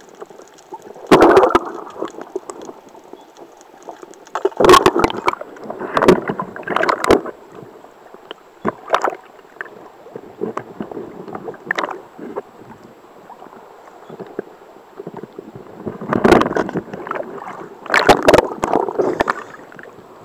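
Sea water splashing and sloshing around a speargun-mounted camera at the surface, in irregular loud bursts a few seconds apart over a steady wash.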